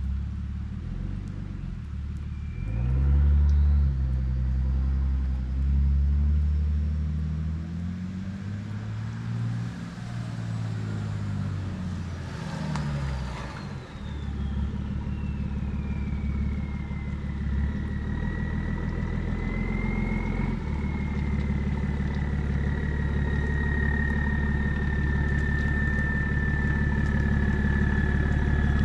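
BMW 335d's twin-turbo straight-six diesel with a 3.5-inch single-exit exhaust, revving up and down, with a piercing turbo whistle. The whistle climbs steeply in pitch for several seconds and sweeps back down. It then holds a steady high whistle over the engine running evenly.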